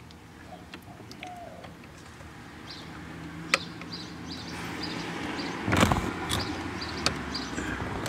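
Wires and a plastic wiring connector being handled behind a car's dashboard: scattered small clicks and rustling, with a louder rustle about six seconds in, over a low rumble that builds from about halfway through.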